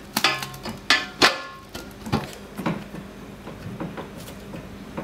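Metallic knocks and clinks, a few ringing briefly, as the face and polished lip of a three-piece alloy wheel are handled and seated together. The loudest knocks come in the first second and a half, with softer ones after.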